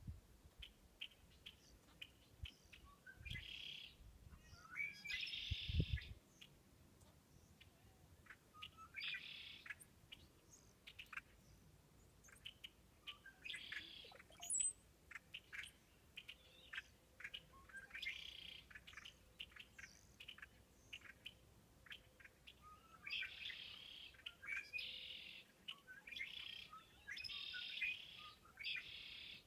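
Red fox kit giving repeated high-pitched chirping calls, with bursts of rapid chittering every few seconds that come thicker near the end. A dull thump about six seconds in.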